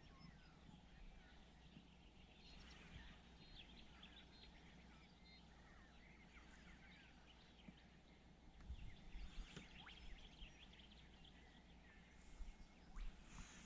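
Faint background birdsong: many small chirps and whistles, with a few soft low knocks from about two-thirds of the way in.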